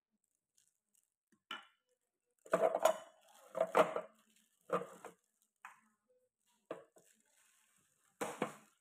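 Hard plastic knocks and clatter from handling the parts of an electric juicer, about seven separate clunks and rattles with short silences between; the juicer's motor is not running.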